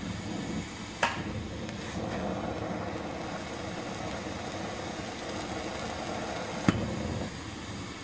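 Glassworking torch flame hissing steadily while a glass tube is heated in it, with two sharp clicks, one about a second in and a louder one near the end.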